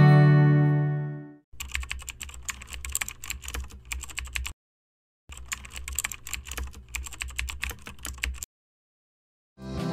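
Keyboard typing sound effect: two runs of rapid key clicks, each about three seconds long, with a short silence between them. Acoustic guitar music fades out at the start and comes back in near the end.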